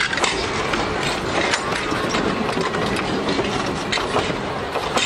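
Railroad passenger coaches rolling past at close range: a steady rumble of steel wheels on the rails with irregular clicks as the wheels cross the rail joints.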